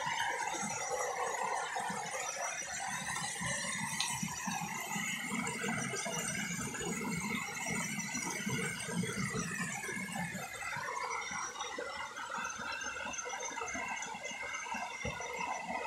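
Night chorus of insects: a steady high-pitched trilling at several pitches at once.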